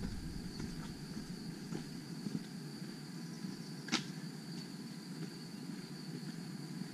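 Quiet rainforest ambience: a steady high-pitched insect drone, with faint footsteps on a paved path and a single sharp click about four seconds in.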